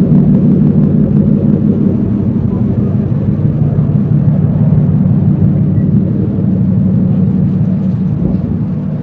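Harbour industrial machinery running: a loud, steady low drone with a constant hum, easing off slightly near the end.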